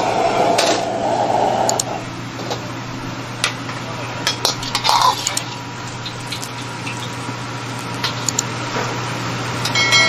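Steel ladle clinking and scraping against a wok and steel pots, with a few sharp clinks between about two and six seconds in. Under it runs a steady hum, with a louder rushing noise that drops away after about two seconds.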